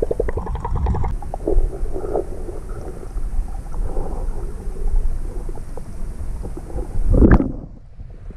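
Muffled water sloshing and low rumble heard through a camera held underwater, with irregular swishes and a louder surge about seven seconds in that cuts off sharply.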